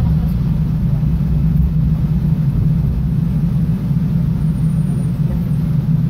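Steady low rumble inside a moving DART light-rail train car.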